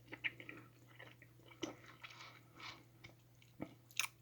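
Faint close-up mouth sounds of someone chewing a big mouthful of gelatinous gummy candy: scattered soft wet smacks and clicks over a low steady hum.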